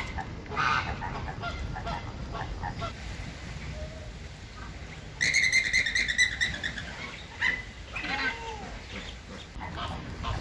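Flamingos honking with goose-like calls: a few short calls, then a loud drawn-out call of about two seconds in the middle that sags slightly in pitch at its end, followed by more short calls.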